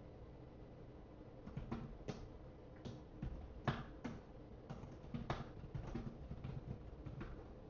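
Irregular keystrokes and clicks on a computer keyboard, a few of them louder, with gaps in between.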